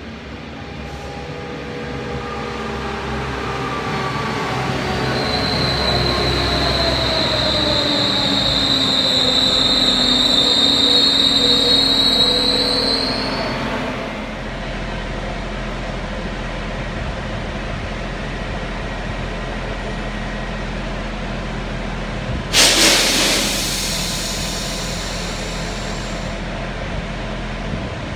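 Pesa diesel multiple unit arriving and braking to a stop: its drive note falls in pitch as it slows, with a high brake squeal for several seconds. It then stands with its diesel engine idling steadily, and about two thirds of the way through a short, loud hiss of released air breaks in.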